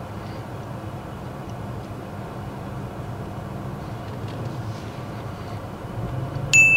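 Car engine running at low revs, heard from inside the cabin as a steady low hum. A short high-pitched beep sounds near the end.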